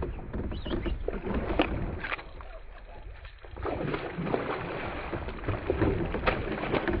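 A hooked bowfin thrashing and splashing at the surface beside a kayak, heard as a run of short irregular splashes and knocks over a rough watery wash.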